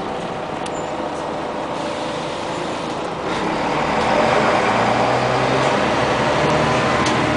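Scania CN94UA OmniCity city bus heard from inside the passenger cabin: steady engine and road noise that grows louder about three seconds in as the bus speeds up, the engine note climbing in steps.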